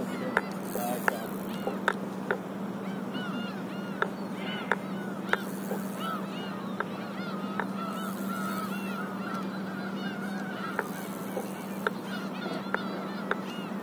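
A flock of birds calling continuously, with many short overlapping honk-like calls, and sharp clicks scattered through it.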